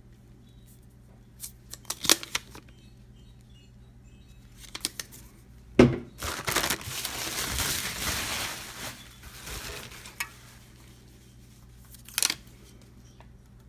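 Beer cans handled among bubble wrap and plastic packing bags in a cardboard box: scattered clicks and knocks of the cans, a sharp knock about six seconds in, then about three seconds of crinkling plastic. A steady low hum underneath.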